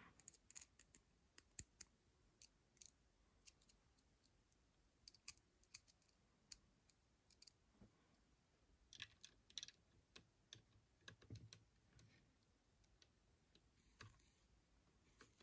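Faint, scattered clicks and taps of small plastic action-figure parts and a small screw being handled, over near silence, with a short flurry of clicks about nine to eleven seconds in.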